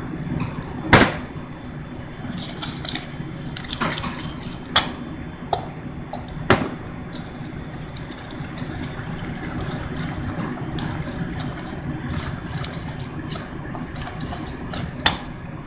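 Water pouring from a glass measuring cup into a stainless steel bowl of flour, then a metal spoon stirring and scraping a thick batter in the bowl. A few sharp clinks of the spoon against the steel bowl.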